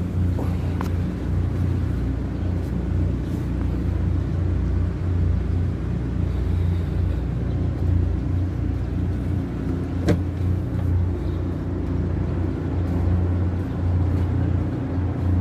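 Steady low engine drone of a purse seine fishing vessel, with a sharp knock about ten seconds in.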